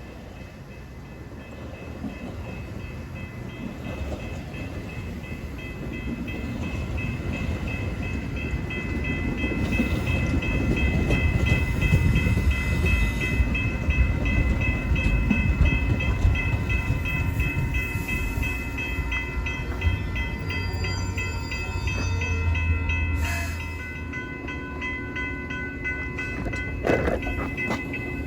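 Metra commuter train rumbling through the station, the rumble building over the first ten seconds or so and then holding, with a bell ringing steadily over it.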